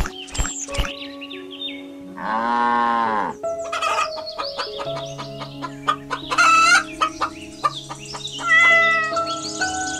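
A rooster crowing once, about two seconds in, then hens clucking, with the loudest calls near the middle and near the end, over steady background music.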